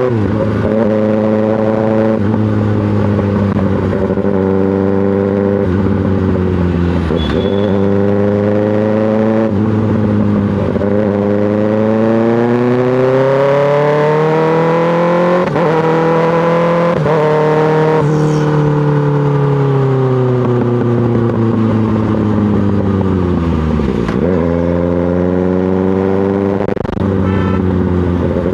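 2024 Kawasaki ZX-6R's inline-four engine through an M4 GP slip-on exhaust, pulling up through the gears with a quick drop in pitch at each shift. About two thirds of the way through the note falls steadily for several seconds as the bike slows, then it climbs again as it pulls away near the end.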